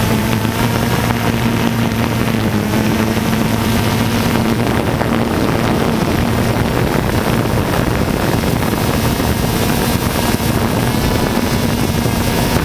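DJI Phantom 2 quadcopter's four electric motors and propellers buzzing steadily in flight, heard from the onboard camera, with wind rushing over the microphone.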